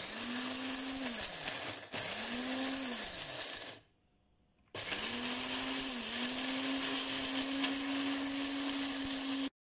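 Electric mixer-grinder grinding whole roasted spices (coriander, cumin, cloves, cinnamon and more) into powder. The motor runs in short bursts whose pitch climbs and then sags, followed from about halfway by a longer, steadier run that cuts off abruptly near the end.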